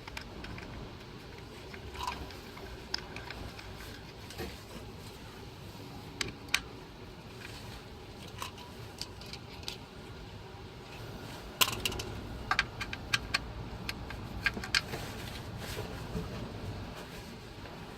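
Hand tools and small metal parts clicking and clinking in irregular strikes while the igniter module is unbolted and taken off, with a quick run of sharper clicks near the middle of the stretch.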